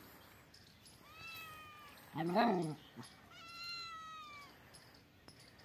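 Tabby kitten giving two long, high, drawn-out wailing meows, with a louder, lower cry that rises and falls between them about halfway through: the defensive calls of a kitten squared off against a dog.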